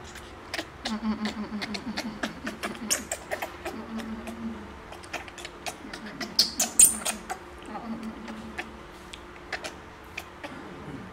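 Baby monkey feeding from a milk bottle: a run of small wet clicks and smacks from sucking and handling the bottle, with low humming sounds. A short high squeak about six and a half seconds in is the loudest sound.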